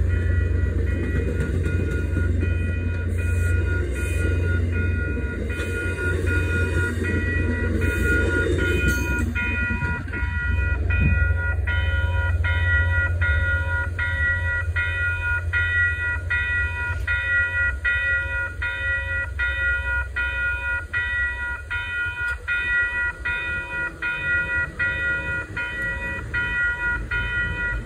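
Railroad grade-crossing warning bell ringing steadily, about one and a half strokes a second. For the first ten seconds or so the coaches of a passing commuter train roll by over the rails underneath it, then the bell rings on alone.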